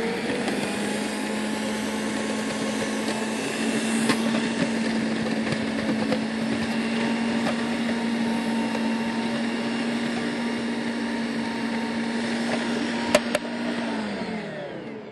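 Bosch food processor motor running steadily while bell pepper, onion, olives and mushrooms are pushed through its feed tube onto the slicing disc, with a couple of sharp clicks; the motor winds down with a falling pitch near the end.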